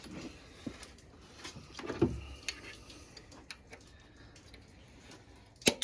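Scattered metallic clicks and clinks of hand tools and engine parts being handled, with a heavier knock about two seconds in and a sharp click near the end.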